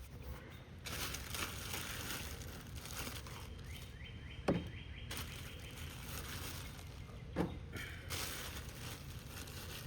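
Rustling and handling noises as things are moved about in a search for supplies, with two sharp knocks, one about halfway through and one near the end.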